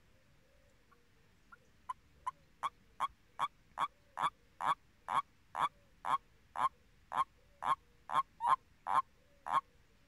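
Common toad croaking: a run of short, evenly spaced calls, about two a second, starting faint about two seconds in and quickly growing louder.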